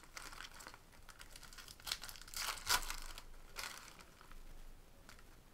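Foil trading-card pack wrappers crinkling and tearing as a pack is ripped open and the wrapper crumpled, in a string of crackles that are loudest about two and a half seconds in, with a last small rustle near the end.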